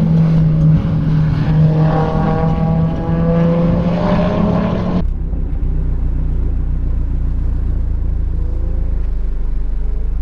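Supercharged Mazda Miata's four-cylinder engine under hard acceleration, its pitch rising. About five seconds in the sound cuts abruptly to a steady low rumble.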